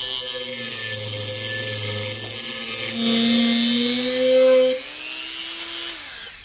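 Handheld rotary tool spinning a small sanding drum against the steel of a knife blank forged from an old file, sanding the shoulder of the integral bolster. The steady high whine grows louder from about halfway, then drops in pitch near the end.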